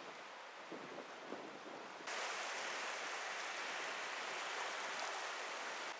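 Sea surf washing on the shore, soft at first; about two seconds in it jumps to a louder, steady hiss of small waves washing over pebbles.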